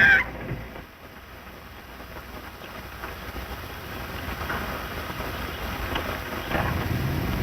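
Car engine running and slowly getting louder as the car pulls away after the clutch is let out, with a low hum coming in near the end, under the steady hiss of an early film soundtrack.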